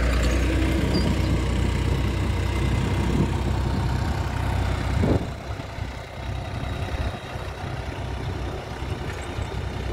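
Mahindra 265 DI tractor's three-cylinder diesel engine running steadily under load as it pulls a spring-tine cultivator through the soil. The low engine note is loud at first and becomes noticeably quieter about halfway through.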